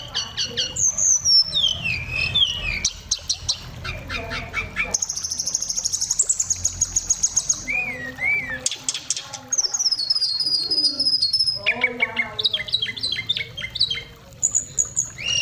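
Oriental magpie-robin (kacer) singing a long, varied song of high whistles, gliding notes, fast rattling trills and a sustained buzzy note, the phrases changing every second or two.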